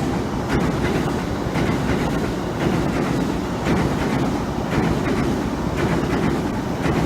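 Chūō Line electric train running at reduced speed under a strong-wind speed restriction. It makes a steady low rumble, with wheel clicks over rail joints about once a second.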